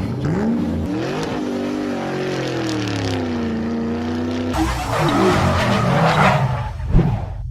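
Car engine speeding up with a rising pitch, then running at a fairly steady pitch. After about four and a half seconds it turns rougher and noisier, with a sharp knock near the end.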